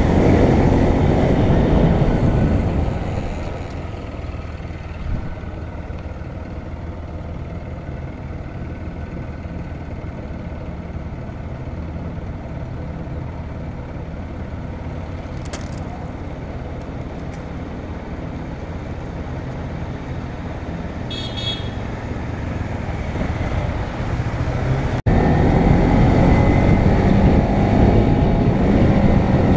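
Motorcycle engine running at road speed with wind and road noise. It is quieter through the middle and loud again after a sudden cut near the end. A short high tone sounds about two-thirds of the way in.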